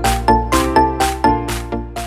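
Background music: bright, bell-like notes struck at a steady pulse of about four a second over a sustained bass.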